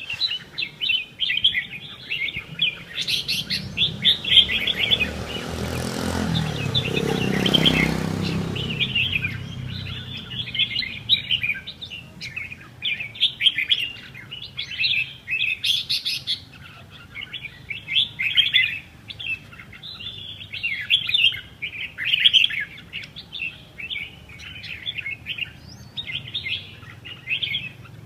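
Small birds chirping rapidly and continuously, several at once. A rushing noise swells and fades about six to eight seconds in.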